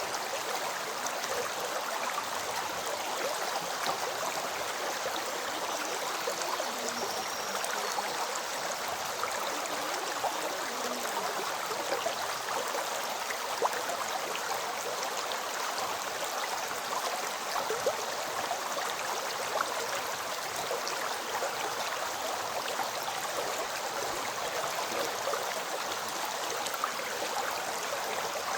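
River stream flowing steadily: a continuous rush of water, flecked with small splashes and gurgles throughout.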